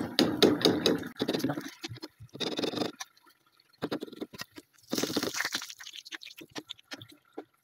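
Metal tongs clicking and tapping as crisp deep-fried spring rolls are lifted out of hot oil and laid on a china plate, in irregular short clicks and crunches. A short hiss of frying oil comes about five seconds in.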